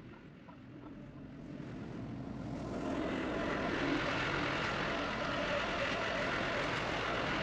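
Skid steer engine running under load, growing louder over the first three seconds and then holding steady.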